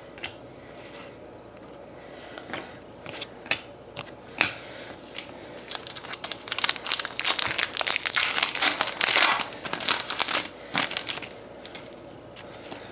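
Foil trading-card pack wrapper being torn open and crinkled. Scattered light clicks and rustles give way, about halfway through, to several seconds of dense crinkling.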